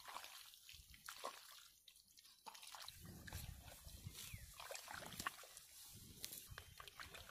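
Faint wet squelching of thick mud as bare hands dig and scoop through it, with many small scattered wet clicks.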